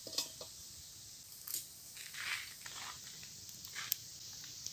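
Faint, scattered knocks and a brief scrape as a cooking pot is handled and set down on a lit stove, over a low steady hiss.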